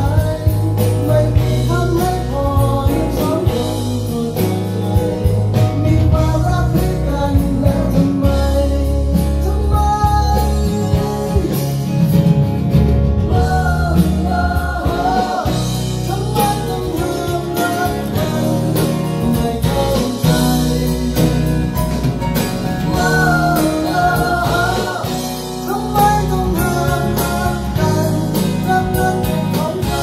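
A song with a singing voice, guitar and a strong bass line, played over ProAc D20r floorstanding speakers driven by a Bryston B135 integrated amplifier from a Bryston BCD-3 CD player.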